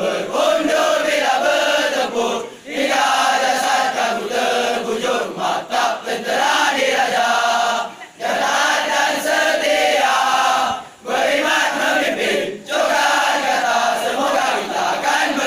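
A large group of teenage boys singing a song together as a massed choir, in long phrases broken by short pauses.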